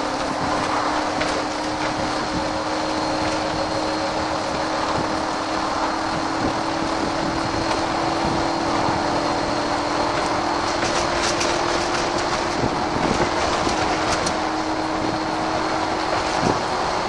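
VDL SB120 Wright Cadet single-decker bus heard from on board while under way. The drivetrain runs steadily with a whine whose pitch creeps slowly upward, over road noise, with a few clicks and rattles between about eleven and fourteen seconds in.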